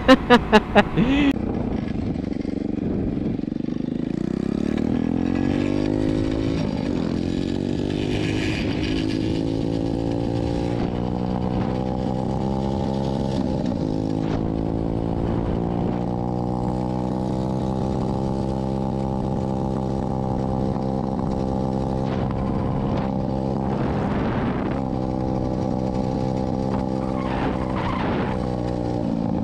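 Dirt bike engine pulling up through the revs over the first few seconds, then held at a steady high pitch while riding, with a few brief dips in pitch along the way.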